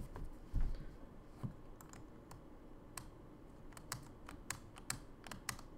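Typing on a computer keyboard: scattered key clicks, a few at first and coming more often in the second half.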